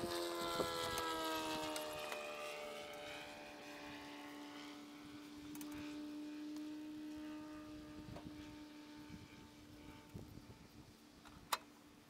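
A passing engine drone: its pitch drops as it goes by in the first couple of seconds, then it holds steady and slowly fades away. Light knocks, and a sharp click near the end.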